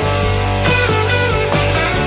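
Instrumental intro music with held notes and occasional sharp hits.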